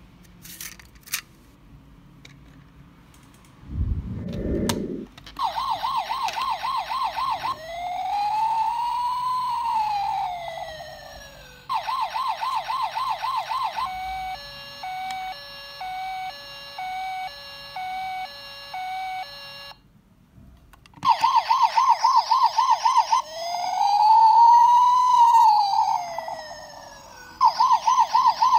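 A die-cast toy emergency van's electronic siren module playing in turns: a fast warble, a slow rising-and-falling wail, then a two-tone hi-lo pattern about once a second. It stops briefly near the end and starts over with the warble and the wail. A short handling bump comes a few seconds before the siren starts.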